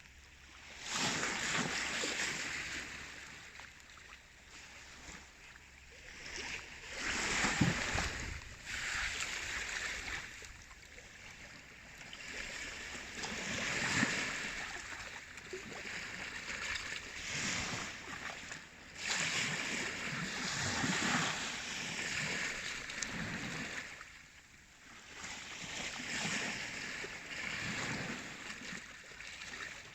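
Baltic Sea waves washing in, a rushing noise that swells and falls away again about every six seconds.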